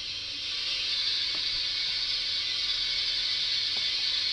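Hornby Duchess model steam locomotive's DCC sound chip playing a steady steam hiss through its speaker, growing louder about a second in, with two faint clicks.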